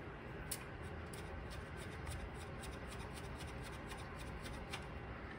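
Faint handling sounds as fingers thread a small nut onto a screw on a metal radio chassis: scattered light clicks and rubbing, with a clearer click about half a second in.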